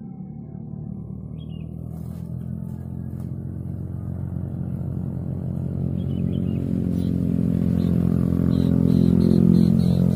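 A vehicle engine droning, growing steadily louder as it approaches. A few short high chirps come in over it in the second half.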